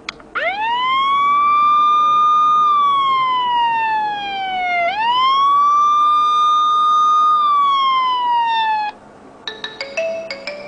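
Siren-sound phone ringtone: a siren wail that sweeps up quickly, holds, then slides slowly down, twice, and cuts off about nine seconds in. A few short choppy beeps follow near the end.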